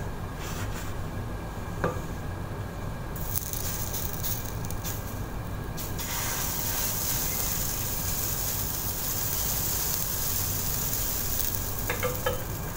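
Crepe batter sizzling as it is ladled into a hot frying pan, the sizzle growing louder and steadier about halfway through. A few light clinks near the end.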